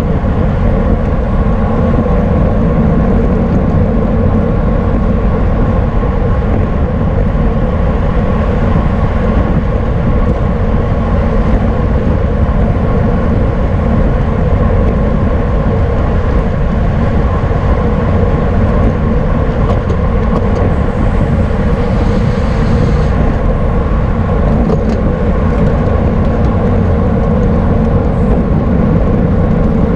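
Steady, loud rush of wind on the microphone of a camera riding along in a bicycle race, deep and unbroken, with road and drivetrain noise under it.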